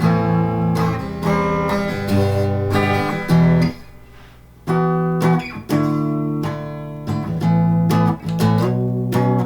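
Les Paul-style solid-body electric guitar on its bridge pickup, played through a Peavey Valve King 112 tube amp: strummed chords ring out. The chords die away briefly about four seconds in, then the playing resumes.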